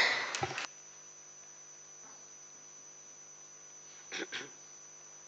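Steady electrical hum of the room's sound system, with a few fixed tones, after the tail of a spoken word fades at the start. Two brief faint sounds come about four seconds in.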